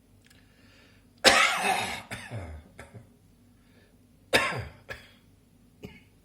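A person coughing twice: a long, harsh cough about a second in, then a shorter one about two-thirds of the way through.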